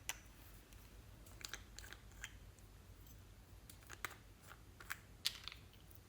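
Slime being squished and kneaded by hand, giving faint, irregular sticky pops and clicks, the sharpest a little after five seconds in.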